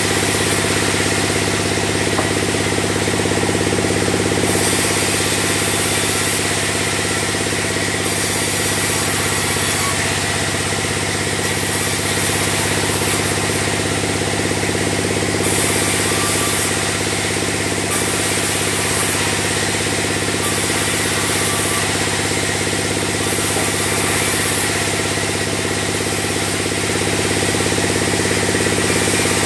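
Sawmill band saw running steadily with a constant mechanical hum and hiss while sawing logs into beams.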